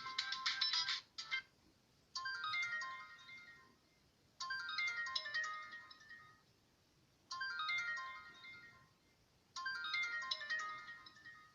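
Samsung GT-C3010 mobile phone ringtones. One ringtone's quick run of high notes ends about a second in. Then the next ringtone plays a short, high melodic phrase four times, each fading out before a pause.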